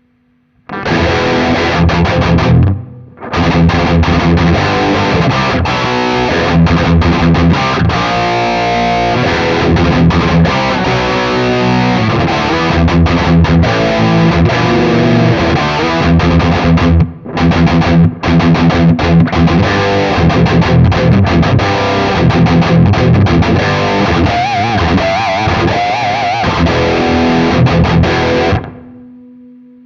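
Electric guitar, a Fender Stratocaster, played through a Nux MG300 modeler on a distorted amp setting: a run of chords and riffs. The playing breaks off briefly twice and stops shortly before the end with a short ring-out.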